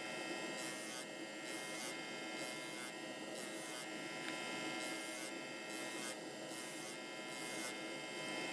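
Electric motor spinning a sanding drum with nothing held against it: a steady hum and whine, with a high hiss that pulses on and off.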